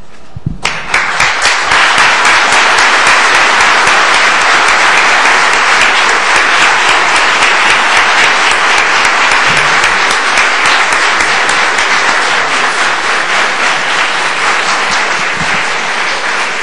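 Audience applauding. The clapping breaks out about half a second in, keeps up steadily and eases slightly near the end.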